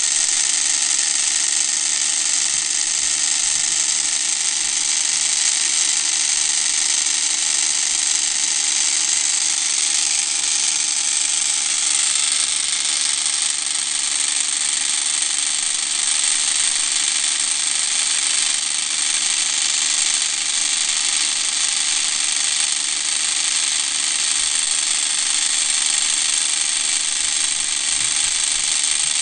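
Small electric motor in a Meccano model helicopter running steadily, spinning the main and tail rotors with an even, high-pitched whir.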